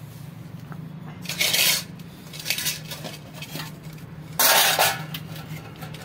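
Steel utensils clattering and scraping as they are handled, with two loud clatters about a second in and just past four seconds and lighter knocks between.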